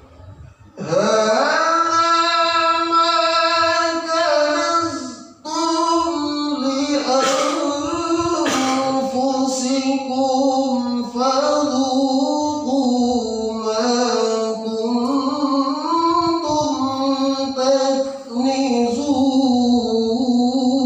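A man's voice chanting Arabic in melodic qiroah (Quranic recitation) style, holding long notes that waver and turn in ornaments. It comes in about a second in, breaks once for breath around five seconds in, and dips briefly near the end.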